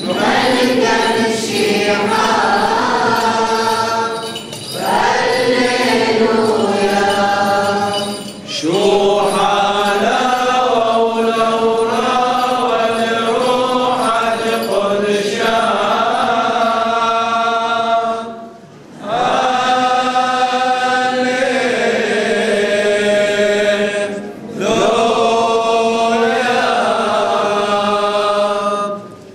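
Deacons and congregation singing a liturgical chant together, with no instruments, in long sustained phrases separated by four short pauses for breath.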